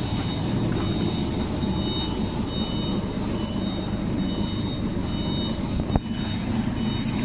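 Automatic double-sided labeling machine running, with a steady motor and conveyor hum. A high-pitched whine and hiss repeat about once a second as the label heads feed labels onto the plastic jugs, and there is one sharp click about six seconds in.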